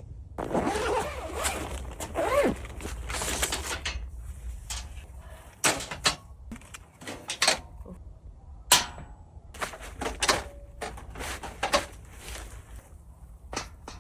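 About three seconds of rustling and scraping with a few squeaks, followed by a series of scattered sharp knocks and clicks.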